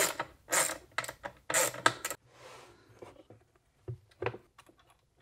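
Hands working the terminal hardware and lid of a metal-cased lithium battery while the terminal studs are being taken off: about five short scraping rattles in the first two seconds, then a couple of light clicks near the end.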